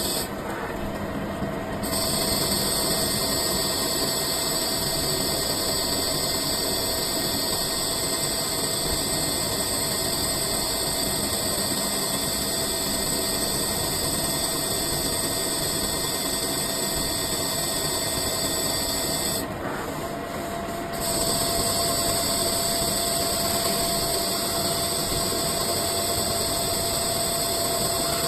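CNC lathe running steadily while turning a cylinder blank into a ball, a constant machine noise with a steady high whine. It drops out briefly twice, near the start and about two-thirds of the way through.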